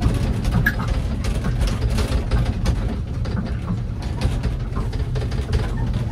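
Small children's ride train running with riders aboard: a steady low rumble with frequent light rattles and clicks.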